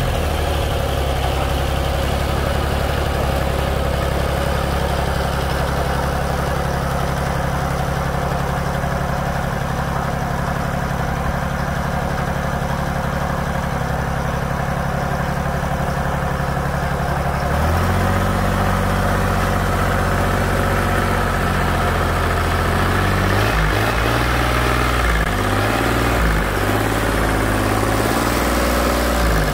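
Kubota 2201 tractor's diesel engine running steadily as the tractor is driven. About two-thirds of the way through, the engine speed steps up, then rises and falls several times.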